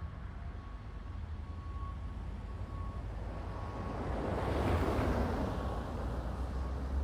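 Storm wind rumbling on the microphone, with a gust that swells into a louder rush about halfway through and then eases.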